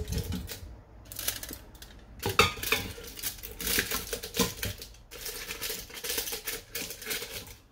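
Glass mason jars capped with aluminium foil being set down one after another into the stainless steel inner pot of an Instant Pot pressure cooker: irregular knocks and clinks of glass on metal, with crinkling of the foil caps.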